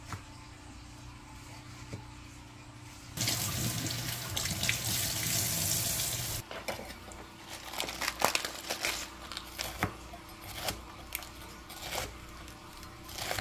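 Kitchen faucet running into a stainless steel sink while a head of lettuce is rinsed under it, starting about three seconds in and shutting off abruptly about three seconds later. Then a knife cuts the lettuce on a plastic cutting board in short, irregular strokes.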